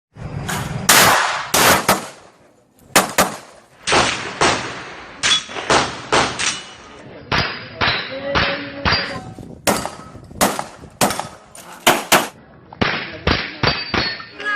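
A rapid, irregular series of sharp shots and metallic clangs, some hits ringing briefly: CO2 air revolver shots with pellets striking metal targets.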